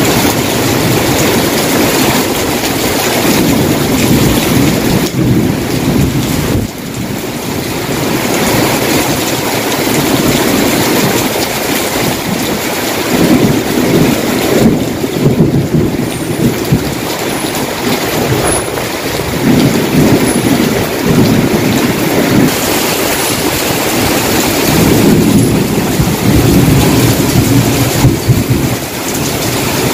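Heavy tropical downpour pouring steadily onto pavement and parked vehicles, with low rumbling surges that swell and fade every few seconds.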